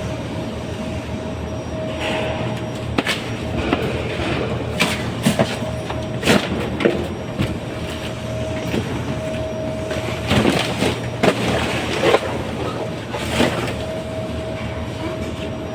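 Plasterboard being knocked out and torn down: irregular sharp knocks, cracks and clatter over a steady mechanical hum.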